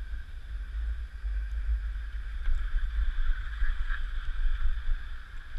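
Wind buffeting the microphone of a body-worn camera, a low uneven rumble that swells and drops, with a steady hiss above it.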